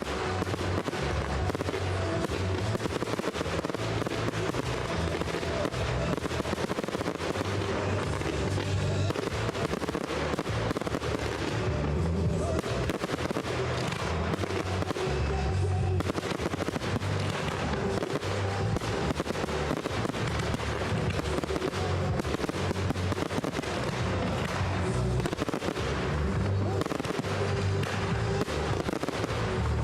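Fireworks display: a dense, unbroken run of bangs and crackling bursts, with music playing along underneath.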